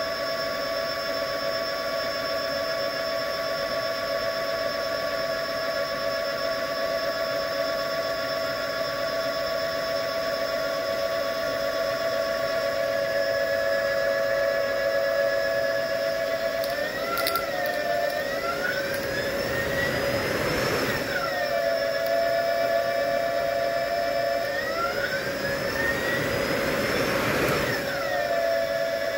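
Brushless hydrogenerator run as a motor by a high-voltage BLDC controller, spinning a Ford F-150 alternator, with a steady electrical whine made of several tones. Twice in the second half the whine wavers and a tone sweeps up in an arc, with a rush of noise, for a few seconds each time. This happens while the alternator's connections are being rewired and its load changes.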